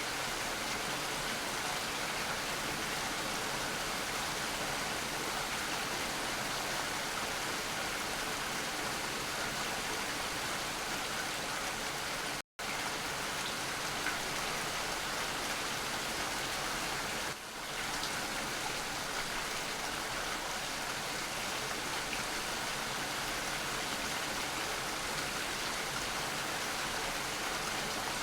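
Steady rain falling, a dense even hiss of drops. It cuts out completely for a split second about twelve seconds in.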